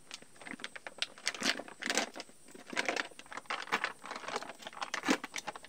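A plastic pesticide pouch crinkling and crackling in the hands as it is handled and opened, in irregular bursts of rustling.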